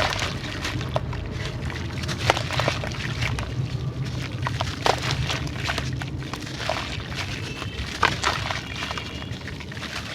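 Dry, grainy sand-clay being crumbled: scattered crunchy cracks and crackles at an uneven pace, with a few louder snaps, over a steady low hum.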